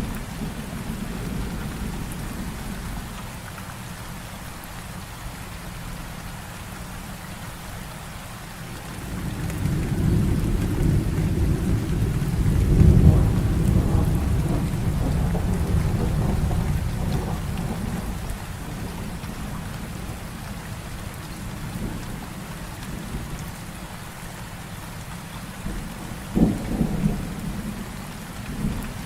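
Heavy rain falling steadily, with a long, low roll of thunder that builds about a third of the way through, peaks and slowly fades. A sharp thunderclap comes near the end.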